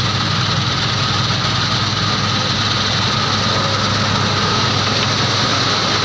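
New Holland combine harvester running as it works the field: a steady engine drone with a constant high whine over it.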